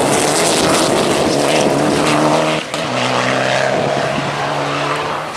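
Rally car engine running hard at high revs, with a brief break about halfway through after which the engine note is lower, as from an upshift.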